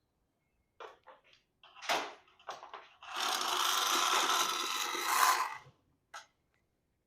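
A few short knocks and rustles of parts being handled, then a long scraping rub lasting nearly three seconds, the loudest sound here, and one short click near the end.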